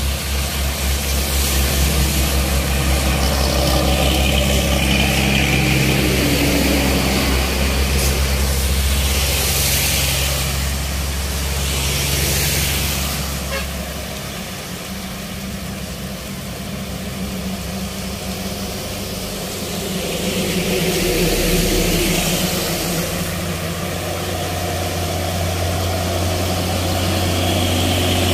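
Diesel engines of heavily loaded trucks crawling slowly uphill, a steady low drone, over the hiss of heavy rain and tyres on the wet road.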